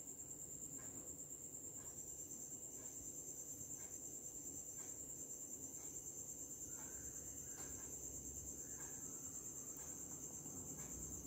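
Cricket chirping: a steady, high-pitched trill that pulses rapidly, with a second, slightly lower trill joining for about three seconds.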